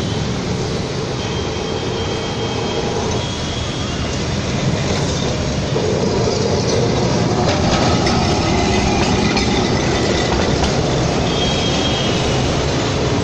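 Two-car Kolkata electric tram rolling along its rails, approaching and passing close by, its steel wheels rumbling on the track with a faint high squeal. It grows louder from about a third of the way in as the tram draws level.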